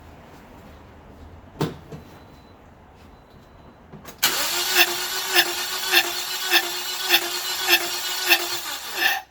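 2009 Toyota Corolla's engine being cranked by the starter for about five seconds without firing, with its injectors disconnected, as for a compression test. The starter whine holds a steady tone, with a regular surge a bit under two times a second, and it cuts off suddenly. A single sharp click comes earlier, about a second and a half in.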